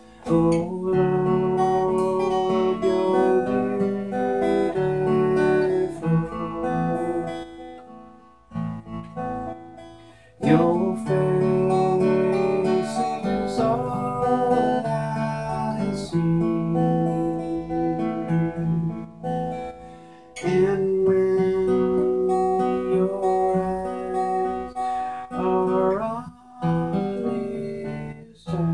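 Acoustic guitar strummed, with a man singing along. The playing comes in phrases broken by short pauses.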